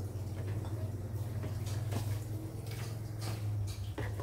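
Lidded wok of coconut-milk chicken soup simmering on a gas stove: a steady low hum with a few faint ticks.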